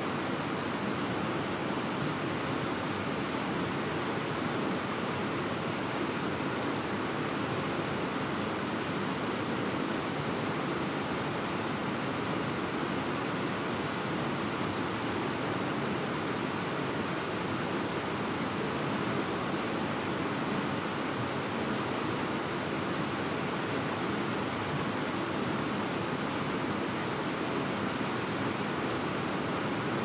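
The Takaragawa, a fast-flowing mountain stream, rushing over rocks in a steady, unbroken flow.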